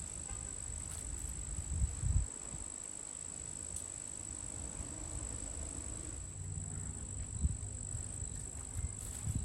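Steady high-pitched chorus of crickets in the background, with a few low thumps about two seconds in and again near the end.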